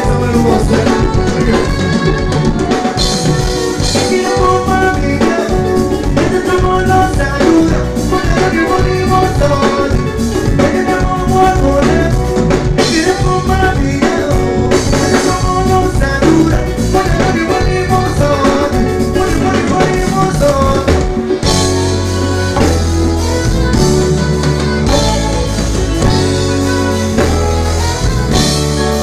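Live band music with a drum kit and electric bass, and a vocalist singing into a microphone over it. The bass line becomes heavier about three-quarters of the way through.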